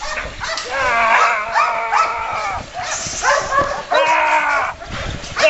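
Loud, repeated drawn-out shouts together with a police dog's vocalising during bite work on a decoy in a padded bite jacket.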